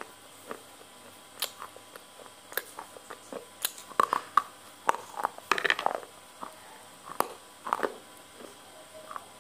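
Close-miked chewing of spicy stir-fried noodles: scattered wet mouth clicks and smacks, busiest from about four to six seconds in as a fresh mouthful is taken.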